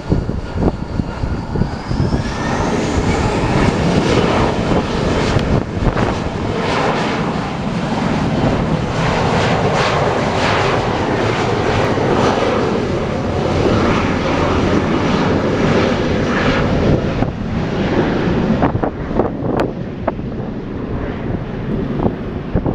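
Airplane engines running loud and steady, with a thin whine rising in pitch over the first few seconds. Gusts of wind buffet the microphone throughout.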